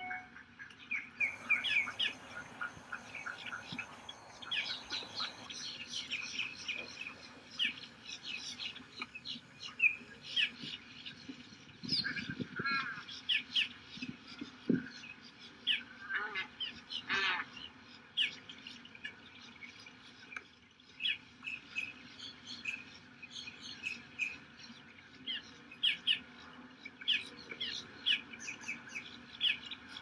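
Several birds chirping and calling, with short high notes overlapping throughout and a few longer trilling calls about halfway through.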